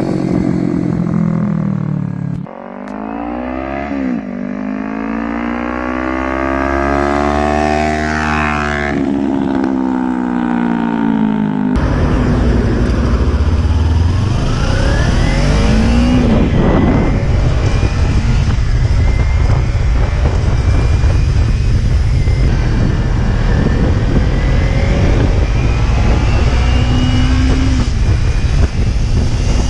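Kawasaki Ninja 300 parallel-twin motorcycle with an aftermarket slip-on exhaust passing by, its engine note climbing and then dropping as it goes past. About twelve seconds in, the same bike is heard from the rider's helmet while riding: heavy wind noise, with the engine note rising under acceleration.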